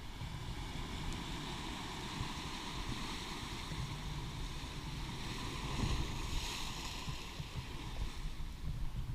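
Ocean surf washing on the shore, with wind buffeting the microphone. The wash swells up about six seconds in.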